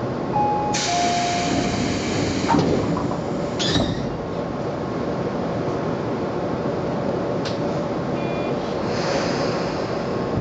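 Tobu 20050 series train doors closing at a station: a two-note falling chime, a long hiss, then the knock of the doors shutting. A few seconds later a short beep and another hiss, over the steady hum of the standing train.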